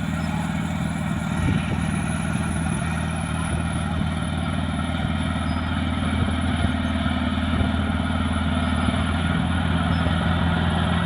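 Caterpillar D6R bulldozer's diesel engine running steadily as the dozer works, a constant low drone with a dense mechanical rumble over it.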